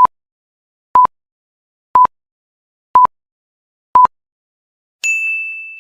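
Electronic countdown-timer beeps: five short identical beeps, one a second, then a higher, longer chime about five seconds in that fades away, marking the end of the countdown.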